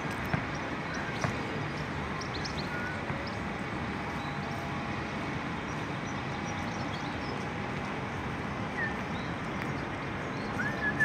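Outdoor street ambience: a steady low rumble of distant traffic with a few short bird chirps over it.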